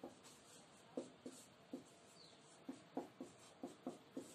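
Marker writing on a whiteboard: a run of short, faint, irregular squeaks and scratches as the felt tip forms letters.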